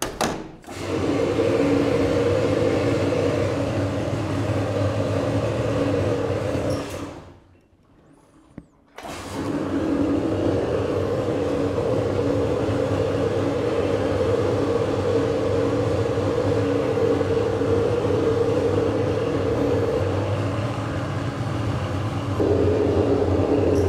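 Vixen Aquablast 1215 vapour-blasting cabinet running: a steady machine hum under the hiss of the water-and-abrasive jet blasting a metal part. The blast stops for about two seconds partway through and then starts again.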